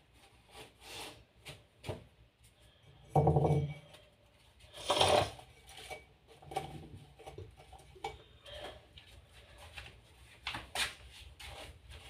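Household objects being handled during cleaning: scattered knocks, clicks and rubbing, with a louder short sound about three seconds in and a sharp, loud one about five seconds in.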